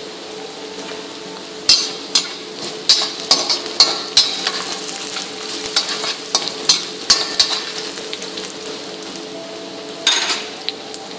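Garlic, ginger, curry leaves and dried red chillies sizzling in hot oil in a wok during the tempering (tadka) stage, with a spatula stirring and scraping against the pan in a run of sharp clicks through the first several seconds and again near the end. A steady hum runs underneath.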